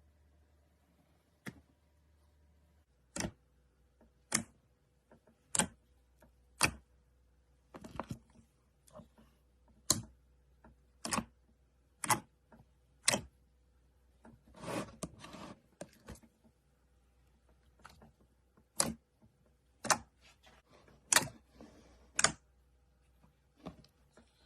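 Slime being pressed and squeezed by hand, giving sharp pops and clicks about once a second, with a longer crackling squish about halfway through.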